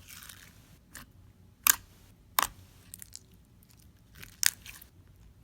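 Clear slime being pressed and folded by hand, giving a series of sharp pops and clicks, roughly one every half second to second, with a soft crackle at the start.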